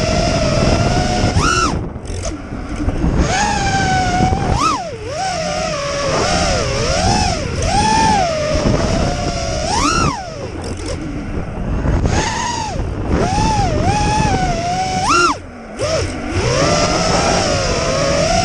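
Quadcopter drone's motors and propellers whining, the pitch rising and falling again and again as it is flown about, over a low rumble. The whine dips briefly near the start and again about three-quarters of the way through.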